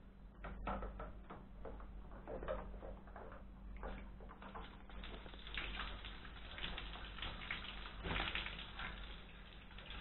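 Light knocks and rattles of a wire birdcage being handled, then from about halfway a denser patter of water on the cage as a lovebird is bathed. A low steady hum lies underneath.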